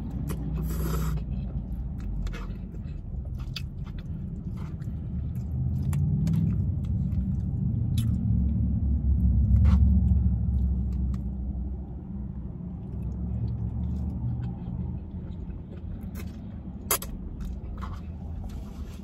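Close-up eating: chewing, with a plastic fork scraping and clicking against a plastic takeout container in scattered sharp ticks. Under it a low rumble swells to its loudest about halfway through and then eases off.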